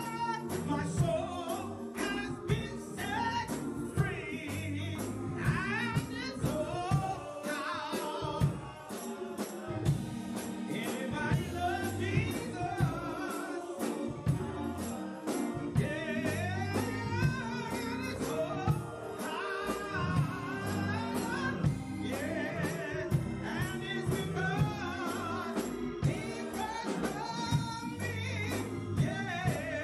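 A woman singing a gospel song into a handheld microphone over music, with a sharp percussive beat about once a second.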